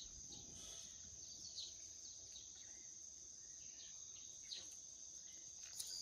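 Near silence: a faint steady high-pitched drone like crickets, with a handful of faint short chirps scattered through it.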